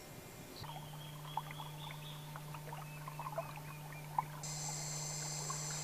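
Quiet river ambience from a canoe: faint water sounds, scattered short chirps and calls, and a steady low hum. About four and a half seconds in, a high, even buzz like an insect's starts.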